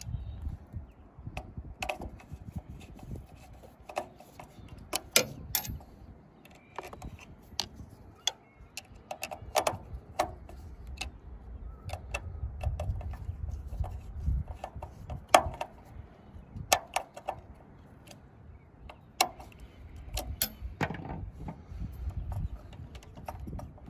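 Small irregular clicks and taps of a screwdriver turning terminal screws and of wires being handled on a hot water system's thermostat and element terminals, with a low rumble that swells twice.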